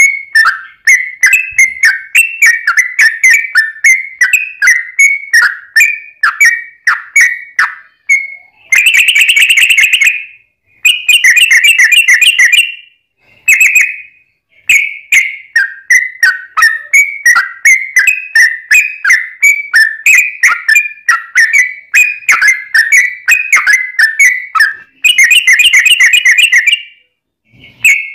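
Yellow-vented bulbul (trucuk) song: a long, loud run of quick chirping notes, about three a second, broken three times by dense rattling phrases a second or two long.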